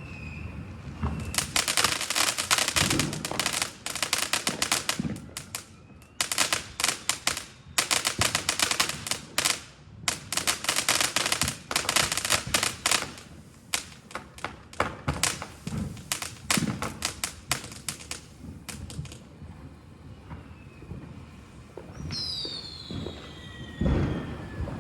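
Chinese fireworks cake (multi-shot battery) going off: dense runs of rapid pops and crackles, broken by short gaps, thinning out after about nineteen seconds. Near the end come a few whistles falling in pitch and a heavy thud.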